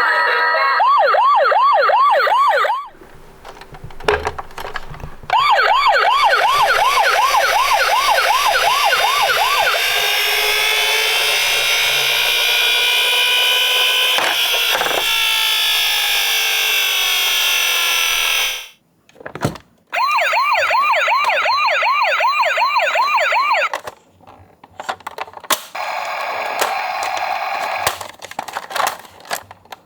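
Electronic siren of a toy ambulance: a fast up-and-down warble, three to four cycles a second, that stops and restarts several times. In the middle the siren turns into a smoother tone that slides down in pitch, and the pauses between runs hold small clicks and knocks.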